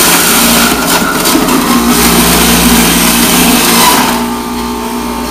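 Jack LaLanne electric juicer running loud, its motor under load as produce is pushed down the chute and shredded. About four seconds in the grinding eases and the motor runs on more quietly.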